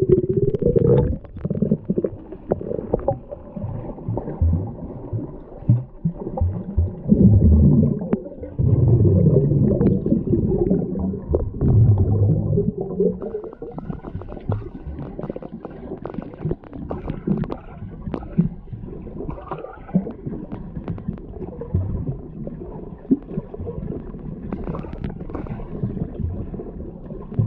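Muffled underwater churning and gurgling of a freestyle swimmer's arm strokes and kicks, heard through a camera submerged in the pool, with many small irregular knocks. It is loudest in the first half and grows quieter after about 13 seconds.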